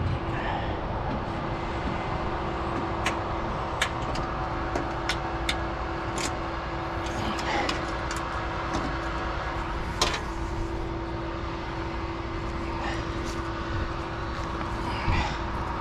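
Diesel engine idling steadily, a low rumble with a constant hum, with a few scattered sharp clicks and knocks, the loudest about ten seconds in.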